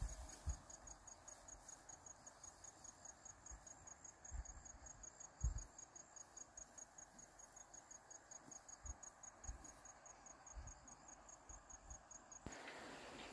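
Faint insect chirping: a steady train of short high-pitched pulses, about four to five a second, which stops suddenly near the end. A few soft low thumps are heard near the middle.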